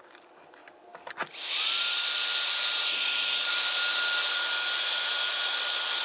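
Handheld heat gun switched on about a second in, its whine rising as the fan spins up, then running steadily as a loud blowing hiss with one high whine over it while it shrinks heat-shrink tubing on a wire.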